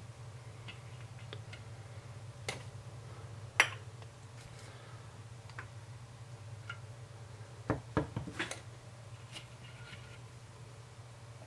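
A wooden craft stick and a plastic measuring spoon clicking and knocking against a bowl while a gold slime mixture is stirred. The taps are scattered, with the sharpest one about three and a half seconds in and a quick cluster around eight seconds, over a steady low hum.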